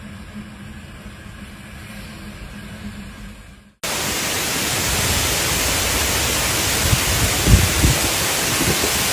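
Storm wind gusting across the microphone: a loud, steady rushing noise with heavy low buffeting, starting abruptly about four seconds in after a quieter stretch with a low steady hum.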